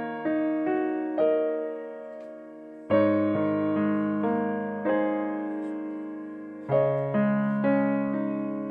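Slow background piano music: chords struck every second or two and left to ring and fade away.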